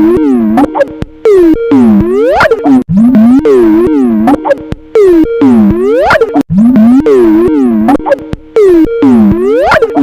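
Skype ringtone, heavily distorted and pitch-warped into a loud looping pattern of swooping tones that rise and fall, repeating about every two seconds.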